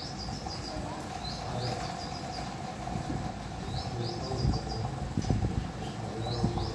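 Small birds chirping in short runs of quick, rising high notes, four times, over a steady low hum. A few dull thumps come a little past halfway.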